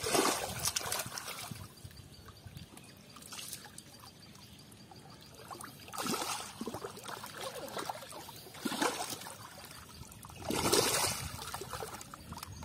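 Hands sloshing and scooping through shallow, thick mud water, in about six irregular splashes a couple of seconds apart with trickling water between, the loudest splash near the end.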